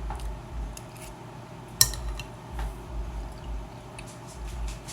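Eating utensil clicking and scraping against a dish of mac and cheese, with one sharp clink about two seconds in.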